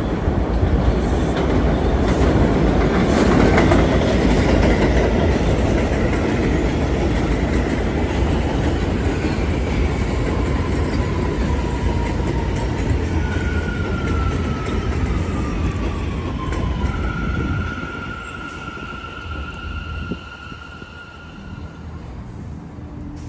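R179 subway train pulling into an elevated station: a loud rumble of wheels on the rails, with whining, squealing tones that fall in pitch as it brakes. The rumble drops away near the end as the train comes to a stop.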